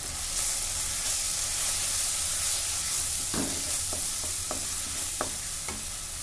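Onion-tomato masala with spice powders sizzling in hot oil in a non-stick pan while a wooden spatula stirs it; the frying hiss is steady, and about five short scrapes of the spatula on the pan come in the second half.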